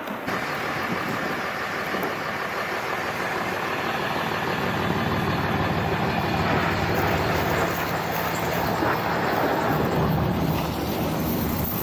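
A vehicle's engine running steadily among road noise, its low engine note standing out from about four seconds in until shortly before the end.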